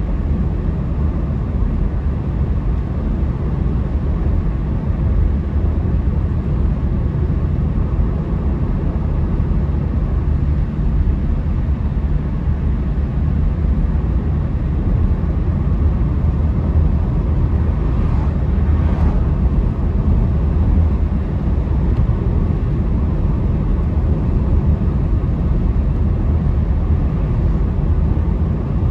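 Steady low road and engine rumble of a moving car, heard from inside the cabin. A brief, faint swish rises above it about two-thirds of the way through.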